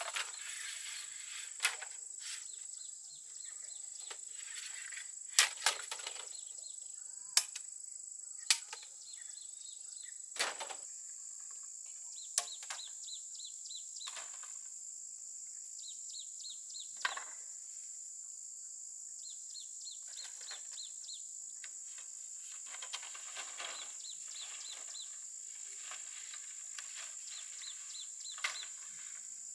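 Steady high-pitched chirring of insects, with irregular sharp knocks and short scraping or rustling noises over it, the knocks most frequent in the first third.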